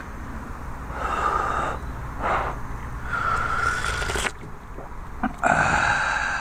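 A person taking breathy, slurping sips of hot coffee from a stainless steel Sierra cup, about four in a row, each under about a second.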